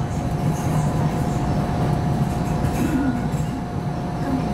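Hong Kong Light Rail Phase I train running along street track, heard from inside the car: a steady rumble of wheels and running gear with a thin, steady whine over it.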